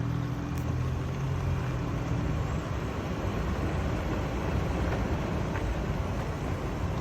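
Toyota Land Cruiser 100 Series running, a low rumble recorded as a noise test. A steady low hum sits in it for about the first two seconds, then gives way to a rougher, broader rumble.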